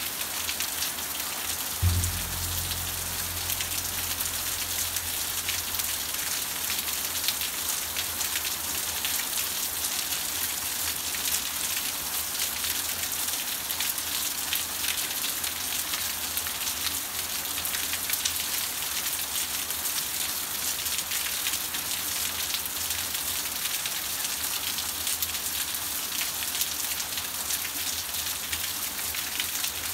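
Steady rain falling, an even hiss of drops. About two seconds in, a single deep low note sounds and slowly fades under the rain.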